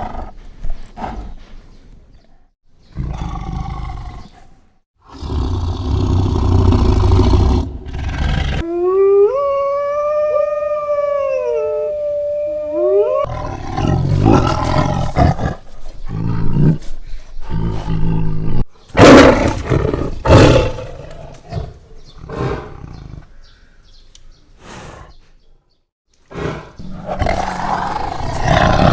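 Big cats roaring in a string of short clips with brief gaps between them. About a third of the way in there is a drawn-out pitched call lasting a few seconds, rising and falling in pitch.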